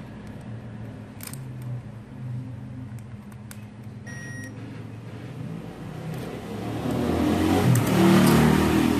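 A few light clicks, then a short beep of about half a second from a digital multimeter's continuity buzzer, the sign that the probes are across a connected path. A low rumbling noise swells in over the last couple of seconds and is the loudest sound.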